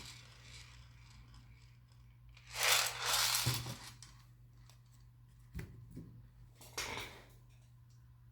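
Rustling and crinkling of thin plastic film as it is handled, twice, with a few light clicks in between.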